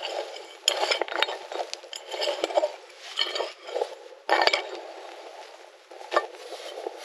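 Metal digging tool scraping and scooping through dry, stony soil in irregular strokes, with sharp clinks as it strikes stones; the loudest scrape comes about four and a half seconds in.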